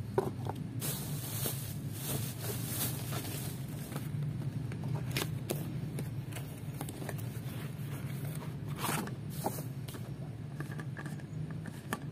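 Clear plastic wrapping crinkling and rustling as it is handled, the busiest stretch early on, with scrapes and light knocks as a cardboard box and a glass tumbler are handled, over a steady low hum.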